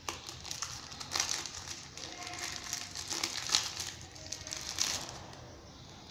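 Clear plastic wrapping crinkling as it is handled and pulled off a fitness band, in irregular crackles that stop about five seconds in.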